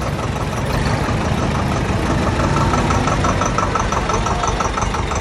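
Tractor diesel engine running at a steady speed with an even, fast clatter.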